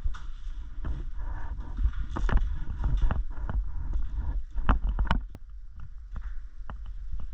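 Low rumbling wind and handling noise on a moving player's camera microphone, with scattered sharp clicks and knocks, the strongest a few seconds in.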